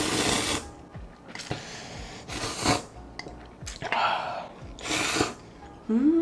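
Instant ramen noodles being slurped, in about five long, noisy slurps with short pauses between them.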